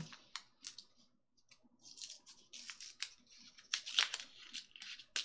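Small paper packet crinkling and tearing as it is handled and pulled open by hand, a run of short crackles that gets busier about two seconds in.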